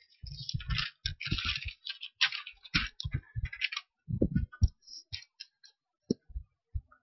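A run of irregular short clicks and taps at a fairly low level, from a computer mouse being clicked. They are dense for the first few seconds and sparse after that.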